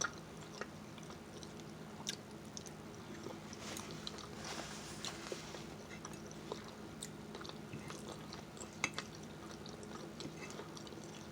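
Close-miked chewing of barbecue-sauced rotisserie chicken, with soft wet mouth clicks and smacks scattered throughout.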